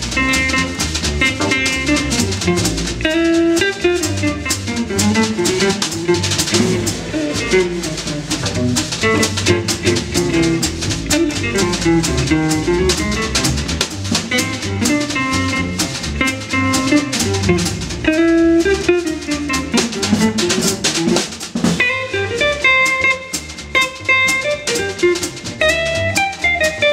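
Live jazz trio playing an up-tempo tune: archtop guitar, plucked double bass and drum kit.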